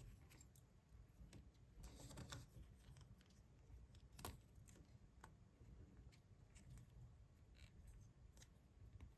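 Faint handling noises: scattered soft clicks and a brief rustle about two seconds in, with one sharper click about four seconds in, typical of small plastic pieces and wrappers being handled.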